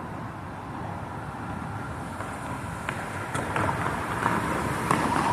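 Steady outdoor city ambience: traffic rumble and wind on the microphone, with a few faint clicks in the second half as it grows slightly louder.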